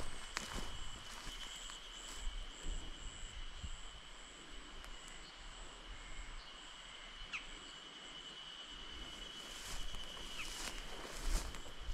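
Quiet outdoor ambience with a steady high-pitched insect drone and a faster pulsing high chirp, then a few footsteps near the end.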